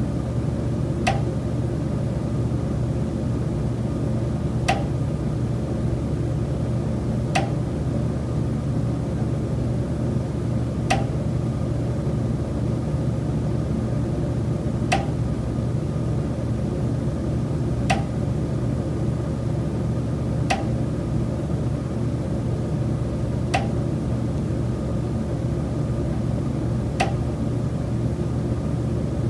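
Sharp single knocks from a high-rise condo building's common elements, nine of them, unevenly spaced about every three seconds. A steady low hum runs underneath.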